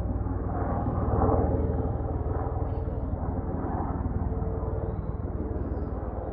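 Helicopter flying by, its rotor blades chopping in a fast, even pulse over the engine's running. It is loudest about a second in, then slowly fades.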